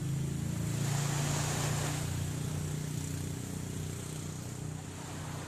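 An engine drones steadily at a low pitch, with a swell of water wash rising and fading about one to two seconds in.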